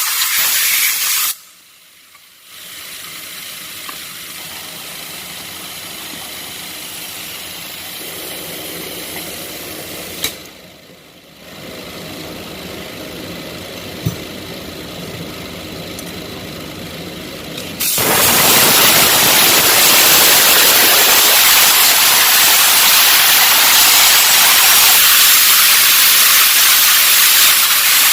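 Steady hissing of a pressurized spray or air jet, broken by two short pauses and much louder over the last ten seconds.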